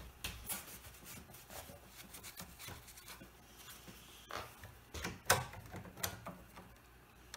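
Bar clamps being handled on a glued-up veneer post: scattered sharp clicks and knocks, the loudest about five seconds in. The sound cuts off near the end.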